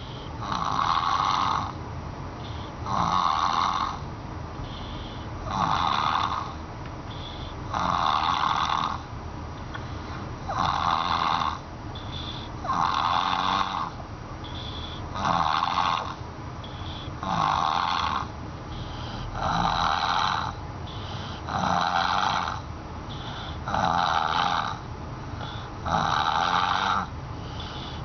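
Baby snoring with a harsh, buzz-saw-like rasp: a loud snore about every two to two and a half seconds, each lasting a bit over a second, with softer breaths between.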